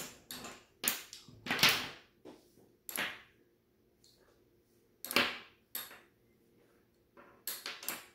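Magnetic construction sticks and steel connector balls clicking together and tapping on a wooden tabletop as a shape is put together: sharp, irregular clicks with gaps of a second or two between them.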